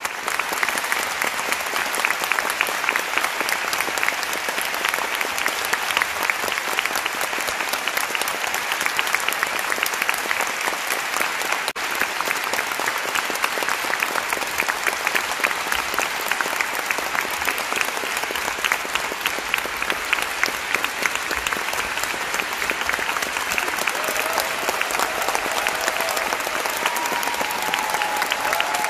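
Audience applauding, a dense, steady clapping that keeps up without a break.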